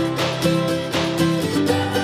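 Background music led by a plucked guitar, with a steady beat.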